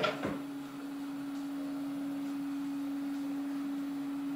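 Prusa i3 MK3S 3D printers, an original and a clone, running with a steady hum and one clear low tone. A brief sharp sound with a quick falling sweep comes right at the start.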